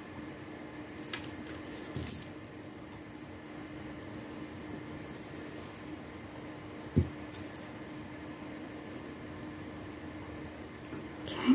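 Light handling noise of jewellery-making: a few small clicks and taps from pliers and unakite stone chip beads as wire is wrapped into a loop, over a faint steady hum.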